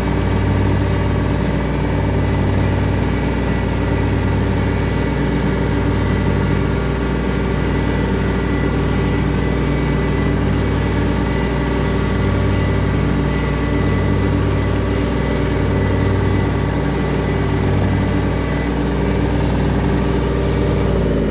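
Compact tractor engine running steadily under load while mowing, its low hum throbbing slowly about every second and a half.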